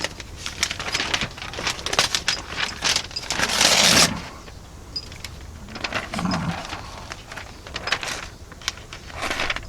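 Knife-sharpening handling noises: repeated light clicks, with one louder scraping stroke of the steel blade, lasting nearly a second, about three seconds in.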